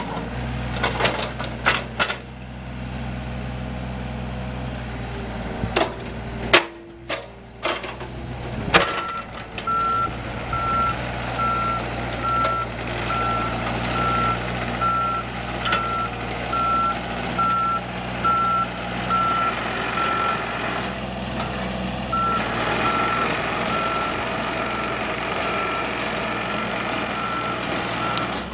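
John Deere 35D mini excavator's diesel engine running, with several sharp knocks in the first few seconds. From about nine seconds in, its travel alarm beeps steadily about once a second as the machine tracks.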